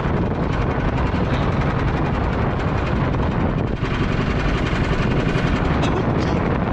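Strong wind buffeting the microphone: a steady, loud rumbling roar.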